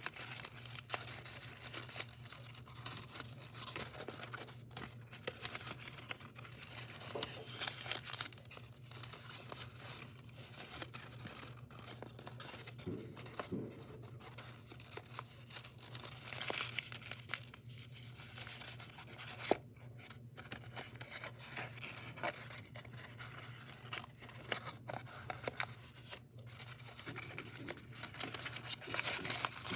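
Sheets of origami paper rustling and crinkling in the hands as a folded paper model is shaped and collapsed, coming in stretches of crisp crackling with short lulls between them.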